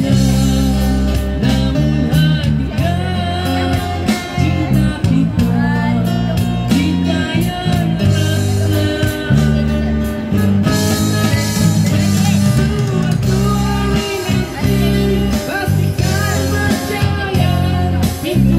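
Live band music: a man sings a slow melody through a microphone and PA, backed by acoustic guitar and keyboard over a strong bass line.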